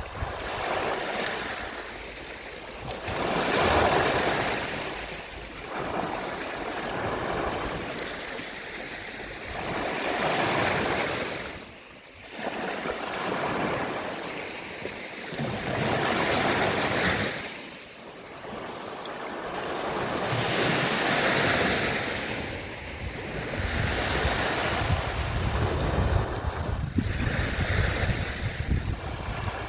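Sea waves washing onto a shore, each surge swelling and then falling away every few seconds.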